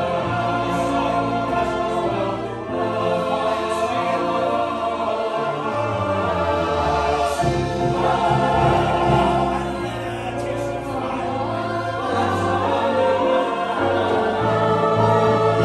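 Large mixed choir and cast singing a musical-theatre number in full, accompanied by a live band, continuous throughout.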